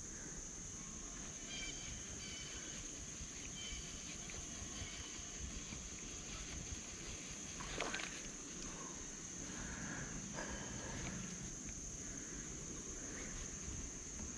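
Steady, high-pitched drone of insects such as crickets or katydids, over a low rumble, with a faint knock about eight seconds in.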